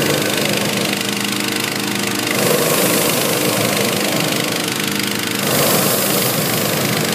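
Small gasoline engine of a hot-air balloon inflator fan running steadily at speed, driving air into the balloon envelope during cold inflation. A steady engine hum sits under a rushing noise that swells twice.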